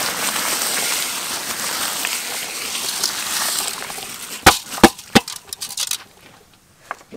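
Dry rice grains poured from a bowl into a wok of boiling water, a dense pattering hiss that fades out about four seconds in. Then three sharp knocks come in quick succession, the loudest sounds.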